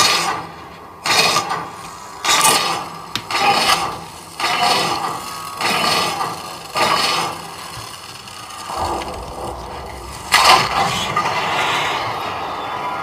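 Film sound effect of a circular vault door's metal serpent locks sliding and unlocking: a series of grinding scrapes and clanks, about one a second. Near the end a low rumble comes in as the heavy door mechanism turns.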